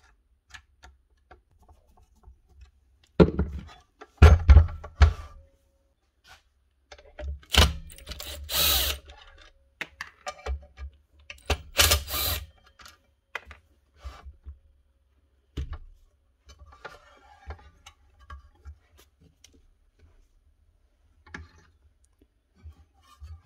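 Tools and saw parts being handled on a workbench: a string of knocks and clatters, loudest about four seconds in, near eight seconds and near twelve seconds, with a brief rasping rush near eight seconds and light clicks in between.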